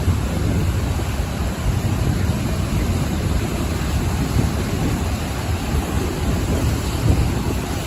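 Ocean waves breaking on the shore, heard as a steady low rumbling wash with small swells and no distinct single crash.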